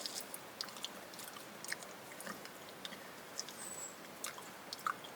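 A person chewing raw small wild bird with its fragile bones: faint, irregular wet clicks and small crunches.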